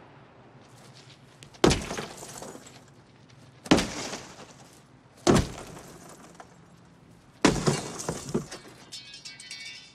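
Four heavy blows smash a Ford Thunderbird's glass, each a sudden crash trailing into the crackle and tinkle of breaking glass.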